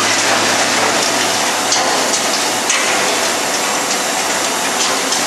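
Double shaft shredder running under load, its blades crunching rigid plastic shells. It makes a dense, continuous grinding noise with scattered sharp cracks over a low motor hum.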